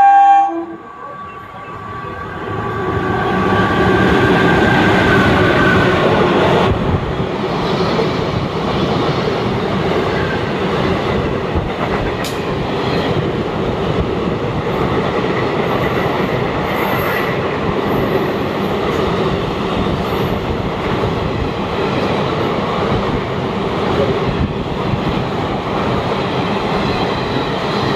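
A passenger train running through the station at speed without stopping, its coaches rumbling and clattering over the rails; the noise swells over the first few seconds and then holds steady. A train horn blast ends in the first half-second.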